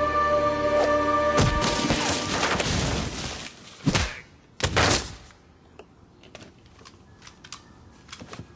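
Film soundtrack: held background music breaks off about a second and a half in with a loud crash, followed by two loud gunshots less than a second apart, then a few faint knocks.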